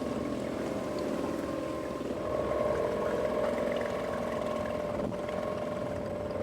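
A small boat's motor running steadily at cruising speed, with an even hum that swells slightly about two seconds in.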